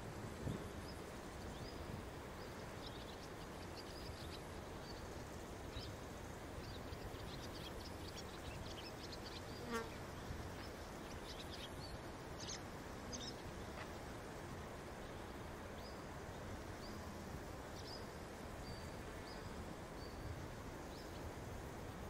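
Outdoor ambience: a steady, even rushing noise, with short high chirps scattered through and a brief buzz about ten seconds in.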